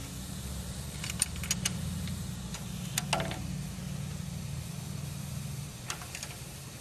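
Metal hand tools clicking and clinking on a Honda Civic's exposed rocker arms as a valve adjuster locknut is worked with a box-end wrench and screwdriver, feeler-gauge blades alongside. There are a few sharp clicks about a second in, a louder ringing clink around three seconds, and two more near the end, over a low steady hum that stops shortly before the end.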